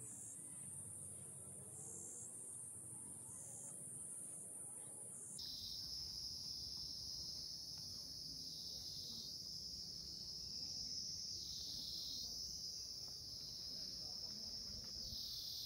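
Insects chirring in a steady high-pitched drone that swells and dips every second or two. About five seconds in it switches abruptly to a lower-pitched drone.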